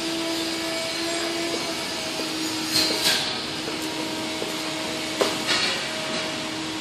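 Steady machine hum holding one constant tone, broken by two pairs of sharp knocks, one about three seconds in and one about five seconds in.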